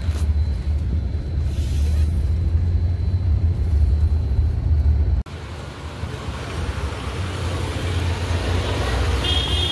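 Steady low rumble of a car driving, heard from inside the cabin, which cuts off abruptly about five seconds in. A quieter, hissier background follows, with a brief high-pitched tone near the end.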